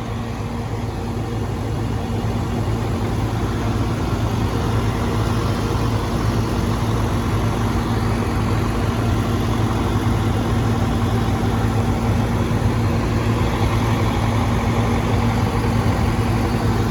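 Heavy machinery's diesel engine running steadily with a constant low hum, growing a little louder over the first few seconds.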